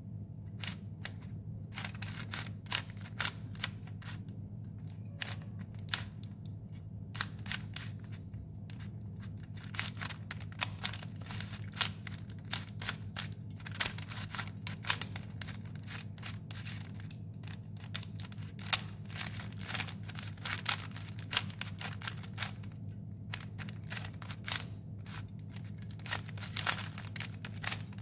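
Plastic 3x3 stickerless Rubik's cube being turned by hand, its layers clicking and clacking in quick, irregular runs of several turns a second as it is solved. A steady low hum runs underneath.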